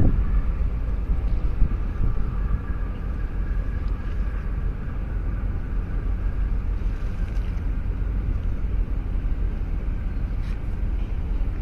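Steady low rumble of a large container ship and its harbour tug under way, with a faint machinery hum, and wind buffeting the microphone.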